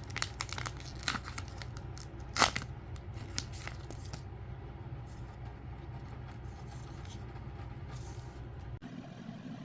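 Crinkling and tearing of packaging being handled and opened: a quick string of sharp crackles, the loudest about two and a half seconds in, dying down after about four seconds.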